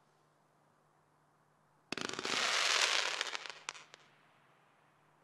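SkyLine Fireworks 'Hidden Shadows' (SL97) cake firing a volley of crackling comets: about two seconds in, a sudden run of sharp pops turns into dense crackling that fades out over the next two seconds, with a couple of last pops near the end of it.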